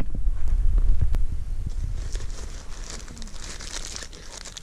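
Low rumble on the microphone that fades over a few seconds, with faint rustling, crinkling and small clicks.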